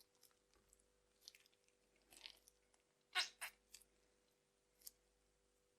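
Faint, scattered squishy crackles of a slime mixture being worked by hand, with a louder pair of crackles about three seconds in.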